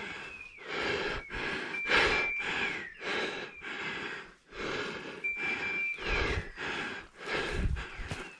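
Heavy, rhythmic breathing close to the microphone, about one breath a second. A dog's beeper collar gives a short double beep twice, about three and a half seconds apart.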